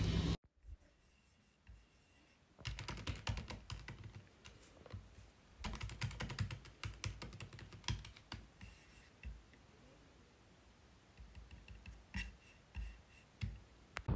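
Fingers typing on a MacBook Pro laptop keyboard: quick runs of soft key clicks, with a lull of a couple of seconds before a last short run near the end.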